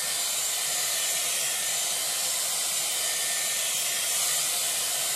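Dyson Airwrap with the round brush attachment blowing air on high speed: a steady, even airy hiss.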